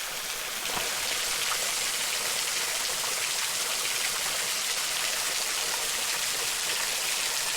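Small waterfall spilling over a rock ledge and splattering onto stone below, a steady even rush of falling water.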